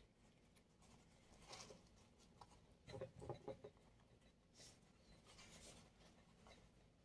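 Faint rustling and scraping of lavash flatbread being folded over its filling and rolled into a wrap by hand on a tabletop, with a short cluster of soft knocks about three seconds in.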